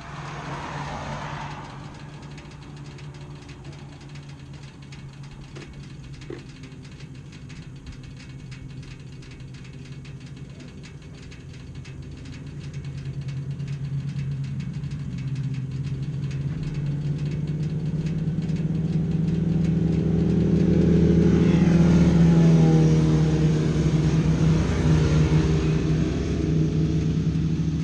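Motorcycle engine running under way with wind noise. From about halfway through it gets louder and its note rises as the bike speeds up, then eases slightly near the end.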